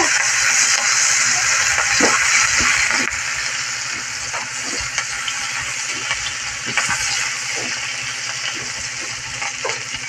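Chopped aromatics sizzling in hot oil in a wok as they are sautéed, with a spatula scraping and tapping the pan now and then. The sizzle is loudest in the first few seconds and then eases a little.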